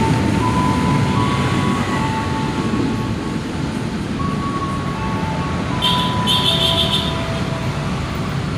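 A train running through a station on the rails, its low rumble fading slowly. Single steady tones change pitch over it, and a short high beeping comes in about six seconds in.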